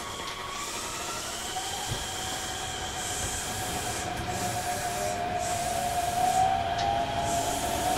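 Inside a Shin-Keisei 8900 series electric train car (Mitsubishi IGBT VVVF inverter) running between stations: steady rumble of wheels on rail with thin motor and inverter tones that rise gently in pitch as the train picks up speed, the sound growing slowly louder.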